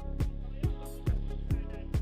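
Background music with a steady, fast electronic beat.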